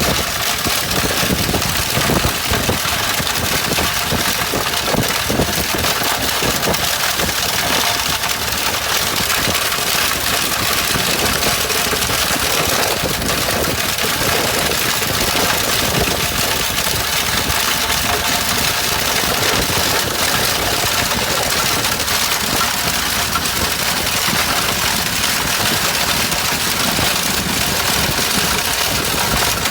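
Stone crushing machine running, a steady loud mechanical din with constant dense clatter.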